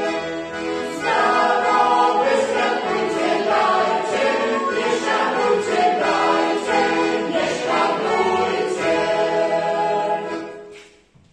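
Mixed-voice folk choir, men and women together, singing a Christmas carol with button-accordion accompaniment; the sound fades out near the end.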